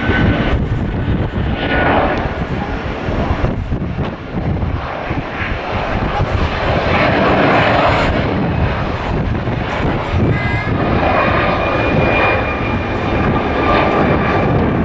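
Airbus A330-200 airliner climbing out after takeoff, its twin turbofan engines at takeoff power: a loud, continuous jet engine rumble that wavers and crackles throughout.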